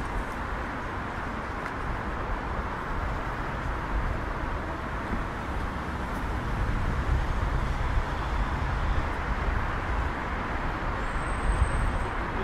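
City street traffic: a steady wash of vehicle noise with a low rumble that grows a little louder in the second half as vehicles pass.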